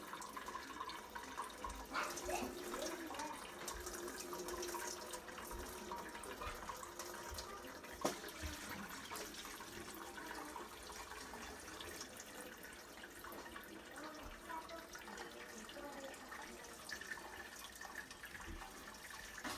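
Chicken broth being poured slowly from a pot through a strainer into another pot, a steady trickle of liquid. There is a sharp clink about eight seconds in.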